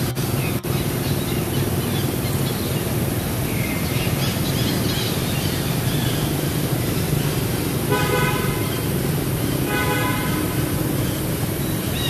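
Two short vehicle horn toots about two seconds apart, late on, over a steady background rumble.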